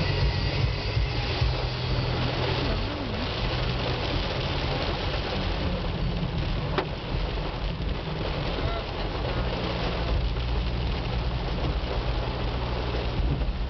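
Steady wash of heavy rain and wet-road tyre noise heard from inside a moving car's cabin, with the windshield wipers running and a low engine hum underneath.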